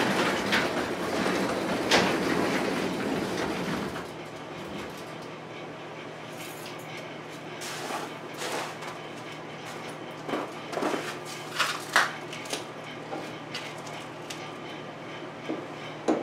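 Sectional garage door being pushed up its track by hand, rumbling and rattling for about four seconds before it stops. Then a few scattered light knocks and clicks.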